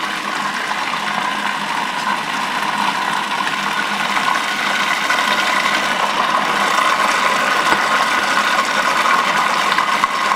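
Cuisinart food processor motor running steadily, its blade mixing a thick peanut sauce of peanut butter, soy sauce, lime juice and hot water. A constant whine that grows a little louder over the first few seconds.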